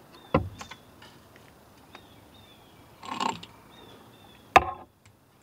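Plastic PVC pipe and hose fittings handled and fitted together: a click, a short rattle about three seconds in, and a sharp knock near the end. Faint short high chirps repeat in the background.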